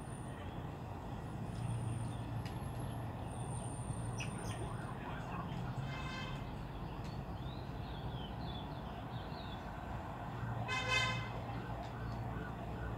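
Outdoor background of a steady low hum of distant traffic, with faint bird chirps. A short horn-like toot sounds about six seconds in, and a louder one comes near the end.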